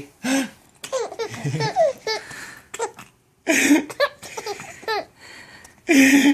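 A baby laughing in several short, hiccup-like bursts with gaps between them, never building into a full belly laugh.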